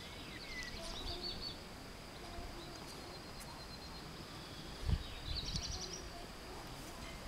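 Songbird singing outdoors: two short, rapid trilled songs, one at the start and one about five seconds in, over a faint steady background hiss. A brief low thump about five seconds in is the loudest sound.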